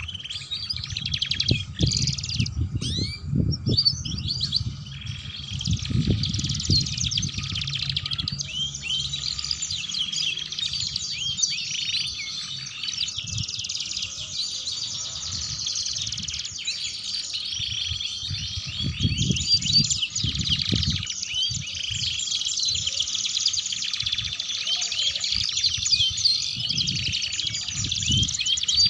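Domestic canaries singing without a break: long, fast, chattering trills and twitters. A low rumble comes and goes underneath.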